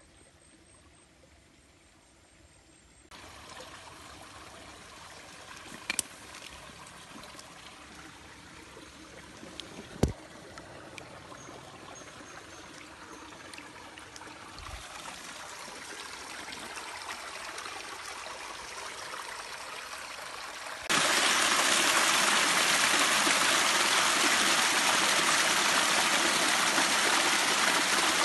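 Near silence for the first few seconds, then a shallow rocky stream running and trickling, growing slowly louder. About twenty seconds in it jumps to the loud, steady splash of a small waterfall. Two sharp knocks stand out along the way.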